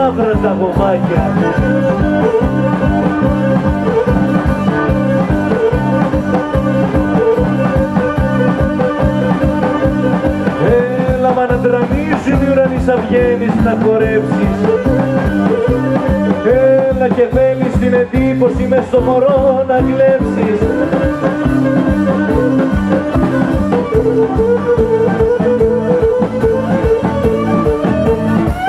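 Live Greek folk dance music played fast: an ornamented bowed melody, most likely violin, over plucked lute and a steady drum beat. Near the end the melody slides upward in pitch.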